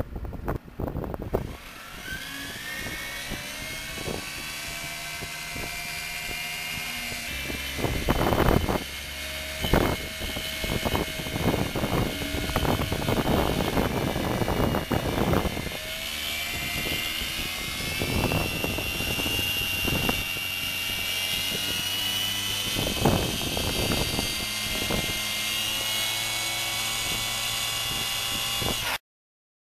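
Hybrid sonic/rotary drilling rig running: a high whine that climbs in pitch at the start and then holds fairly steady. It is broken by repeated bursts of loud rattling and knocking, and it cuts off suddenly near the end.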